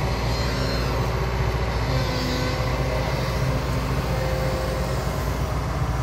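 Komatsu PC70 excavator's diesel engine running steadily under load while the arm and bucket work, with a faint whine coming and going in the middle.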